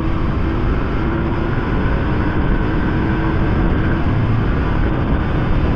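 Small single-cylinder four-stroke dirt bike engine running steadily while riding, mixed with heavy wind rush on the microphone.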